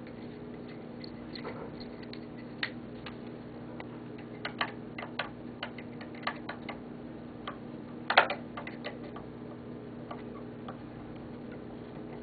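Scattered light clicks and knocks of a screwdriver and small parts being handled on a player piano stack, with a louder cluster of knocks about eight seconds in, over a steady low hum.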